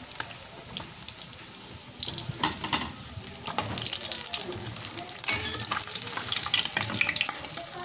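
Boneless milkfish frying in hot oil in a wok: steady sizzling with many sharp crackles and pops of spattering oil, with a louder flurry of pops a little past five seconds in.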